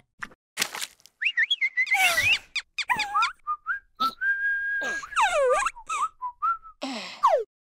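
Cartoon larva characters making squeaky, whistle-like wordless vocal sounds that swoop up and down in pitch, with one held note about four seconds in, among short clicky sound effects.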